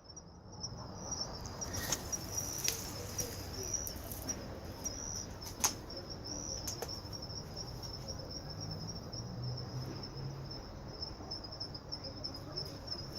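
Insects, such as crickets, chirping steadily in a high, fast-pulsing trill, with a few sharp clicks; the loudest click comes about five and a half seconds in.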